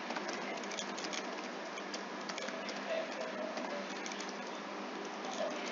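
Computer keyboard keys clicking irregularly as a short line of code is typed, over a steady hiss.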